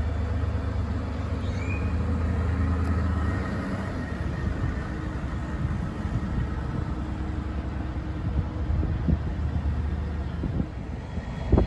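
Mercury outboard motor on a tow boat running steadily at low speed, a low hum that eases down a little about three and a half seconds in.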